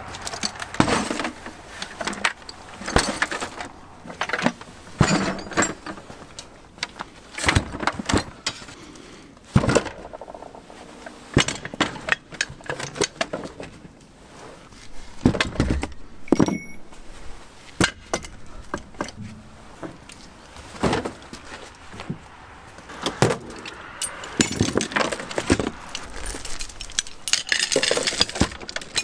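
Metal tools, buckets and jacks being loaded into a car's cargo area, clanking and clinking irregularly as they are set down, with a steel chain jangling near the end.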